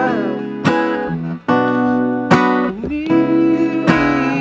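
Cutaway acoustic guitar strummed in a steady rhythm, a stroke about every 0.8 seconds, with the chords ringing on between strokes.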